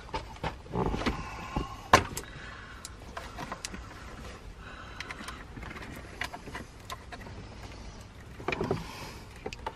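Honda S2000's plastic center console trim panel being worked loose by hand: scattered clicks, creaks and rubbing of plastic as its retaining tabs give. There is a sharp snap about two seconds in and a burst of handling noise near the end.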